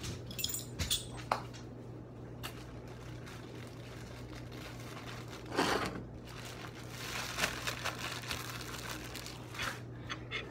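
Clear plastic bag of sliced deli ham crinkling and rustling as hands dig into it and pull out slices, with scattered light clicks and a louder rustle about five and a half seconds in. A low steady hum sits underneath.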